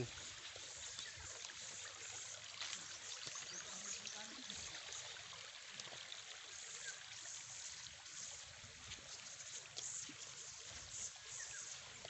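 Faint, steady rushing hiss of outdoor background, with light scattered ticks and rustles of footsteps as a man walks over grassy, rocky ground.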